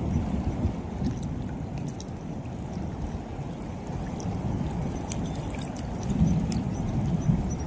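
Heavy rain falling, with water running, a steady low noise without any clear single events.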